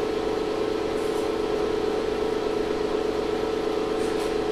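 Steady electrical and mechanical hum with a whir from the running 2500-watt ZVS induction heater rig, holding one pitch throughout.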